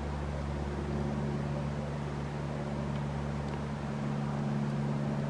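Pickup truck engine idling: a steady low hum.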